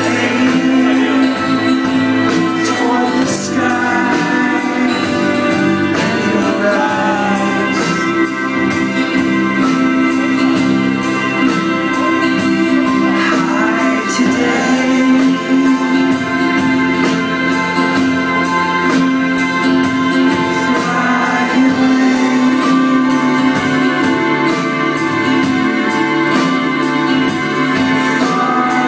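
Live rock band playing a slow song with sung vocals, guitar and keyboards over a steady beat, heard from within the crowd at the venue.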